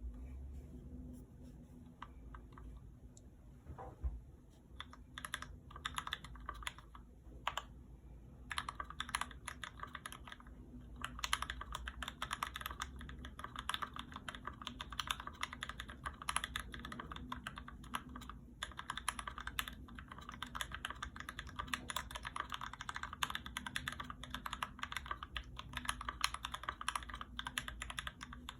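Typing on a GMMK Pro mechanical keyboard with an aluminum plate, lubed Gateron Clear 35g linear switches and ABS keycaps. Scattered single keystrokes at first, then fast, continuous typing from about eight seconds in.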